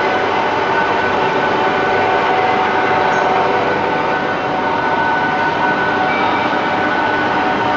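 Durma DCB 5 560 metal-cutting band saw running steadily: a constant machine noise with a few held whining tones over it.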